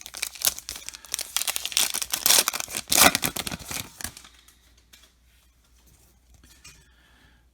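Crinkling and rustling of a trading-card pack's wrapper and cards being handled, dense for about four seconds, then only a few faint ticks.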